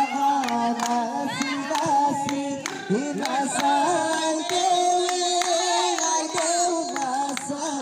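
A group of children and adults singing a song together, with clapping.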